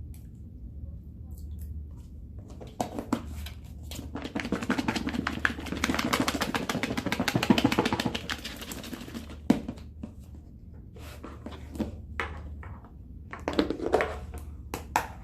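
A Caesar salad with croutons is shaken hard in a lidded bowl to mix the dressing in, and it rattles rapidly for about seven seconds. Scattered knocks and taps follow as the bowl is handled.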